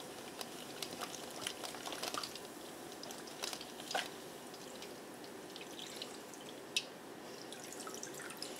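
Apple cider vinegar and baking soda mixture fizzing in a bowl of soaking hair: a faint, steady hiss with scattered small pops and ticks, the fizz she takes to be pulling buildup out of her hair ends.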